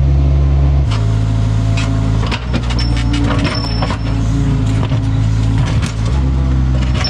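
Excavator engine running under load, its note dropping about a second in and rising again near the end, with knocks and scrapes of the bucket digging into hard clay.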